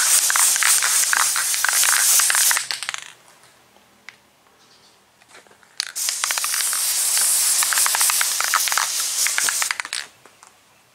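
Aerosol can of flat black spray paint hissing in two long sprays, one ending about three seconds in and another from about six to ten seconds in, as a dry guide coat is misted over primer.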